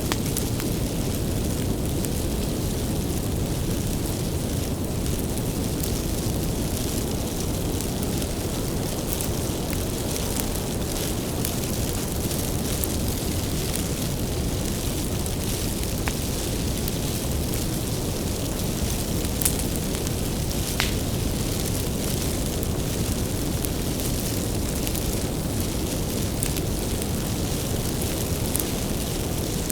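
Wood bonfire burning: a steady low rumble of flames with frequent sharp crackles and pops from the firewood, one pop louder than the rest about twenty seconds in.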